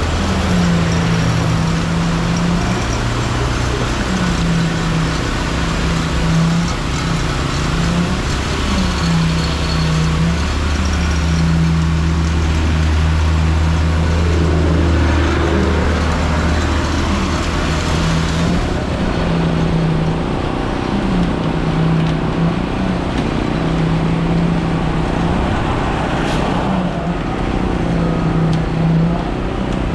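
Concrete mixer truck's diesel engine running steadily, with a low tone that swells and holds every second or two, over passing road traffic.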